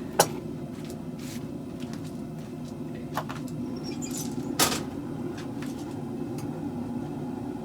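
Blacksmith's tools knocking against a steel workpiece, three sharp knocks with the loudest right at the start, over a steady low hum.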